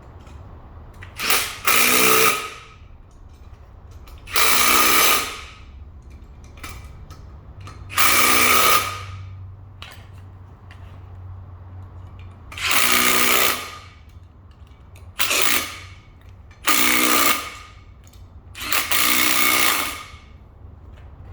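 Power drill run in seven short bursts of about a second each, driving the bolts that hold a new drive shaft coupler tight.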